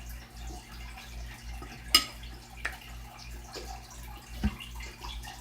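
Sticky shaving-cream fluffy slime being kneaded and squeezed by hand, with scattered wet squishes and clicks, a sharp pop about two seconds in and a lower squelch near the end. The slime is still too sticky and not yet fully mixed.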